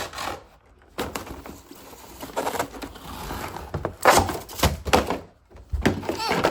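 Cardboard packaging being handled: uneven rustling and scraping with a few knocks as a box is worked out of the Nerf gun's carton.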